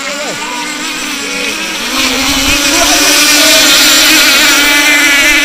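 Small outboard-engined racing boats running at a high, buzzing whine, with several engines overlapping; the sound gets louder about two seconds in as one boat comes close.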